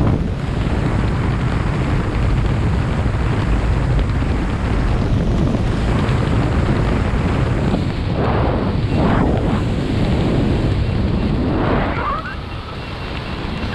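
Wind buffeting the camera's microphone during a parachute descent, a steady low rumble. From about eight seconds in, several short swishing swells rise and fall over it.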